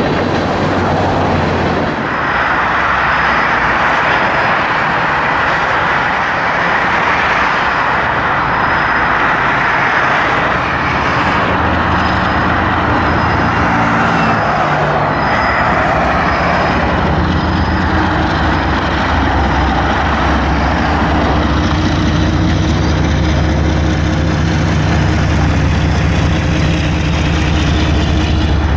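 Canadian Pacific diesel freight locomotive approaching and passing beneath, its engine drone building from about halfway and loudest near the end, over a steady rush of highway traffic.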